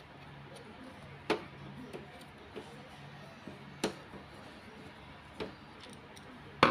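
A screwdriver clicking on metal as the screws holding the fuser unit of a Brother HL-2130 laser printer are taken out. A few sharp clicks, the loudest about one and a half and about four seconds in, over a faint low hum, with a sharp knock right at the end.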